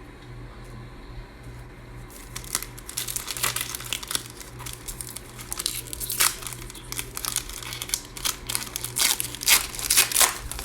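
Plastic trading-card pack wrapper crinkling and being torn open, starting about two seconds in as a run of irregular crackles that gets loudest near the end.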